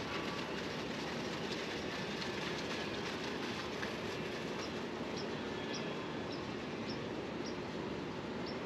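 A steady distant rumble of city noise, with small birds giving short high chirps over it from about halfway through.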